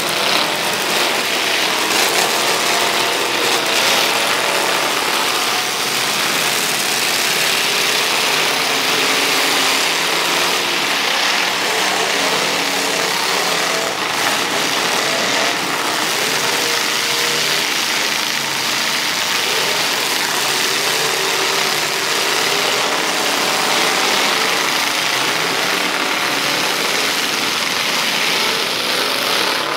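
Several demolition derby car engines running and revving together in a loud, continuous din, their pitch rising and falling as the drivers work the throttles.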